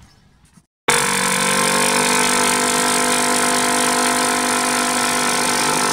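Cordless drill/driver running at steady speed as it drives a screw into the wooden board of a raised garden bed: a loud, even motor whine that starts suddenly about a second in.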